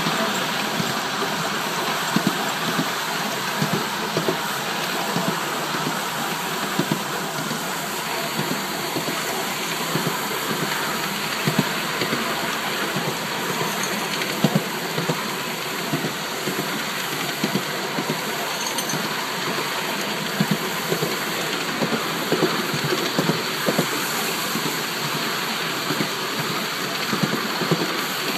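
Five-inch gauge coal-fired miniature steam locomotive, a Polly 6, running under way: a steady hiss of steam over a constant, irregular clatter of small wheels on the track.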